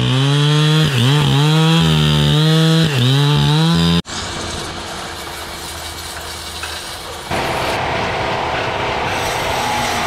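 Two-stroke chainsaw running at high revs while cutting into a large log, dipping briefly twice under load. It cuts off abruptly about four seconds in, giving way to a steady hiss of a water spray wand and then, near the end, a steady machine hum of sawmill equipment.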